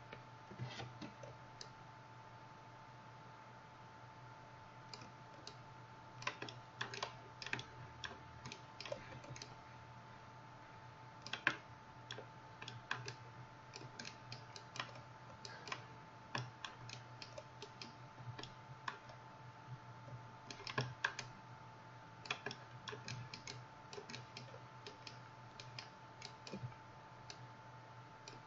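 Computer mouse and keyboard clicking in irregular clusters, with a few seconds' pause near the start, over a faint steady hum.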